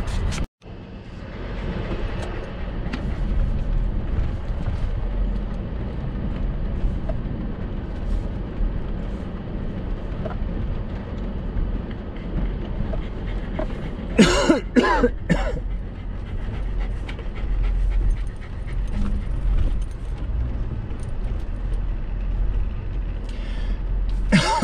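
Toyota Tacoma pickup crawling slowly over a rocky trail: a steady low engine and drivetrain rumble that cuts out for an instant just after the start. About fourteen seconds in, a quick cluster of three or four short, sharp vocal sounds rises over it, and another comes right at the end.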